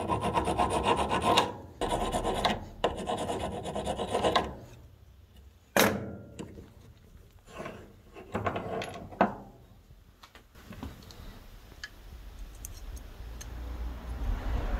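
A flat hand file rasping across a small steel pin clamped in a bench vise, in three long runs of strokes over the first four seconds or so. After that come a sharp click and a few shorter scrapes, then quieter handling.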